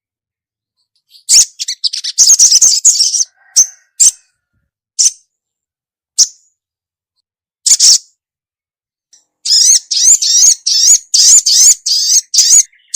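Female sogok ontong (little spiderhunter) calling: a quick burst of high, sharp chirps, then single chips every second or so, then a fast run of rising chirps, about three or four a second, near the end.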